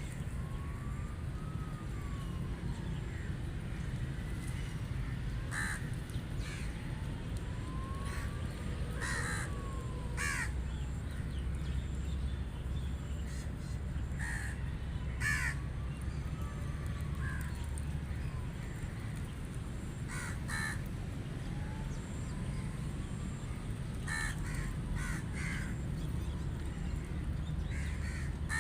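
Rooks cawing: short harsh caws, singly or in quick pairs, every few seconds, over a steady low rumble. A faint whistle that rises and then falls recurs about every seven seconds.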